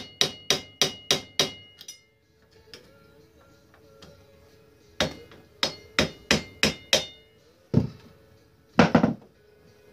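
A hammer tapping a seized part of an ATV's front drum brake, metal on metal with a short ring after each blow. A quick run of blows, about four a second, stops about two seconds in; after a pause comes another run of six, then a few heavier blows near the end.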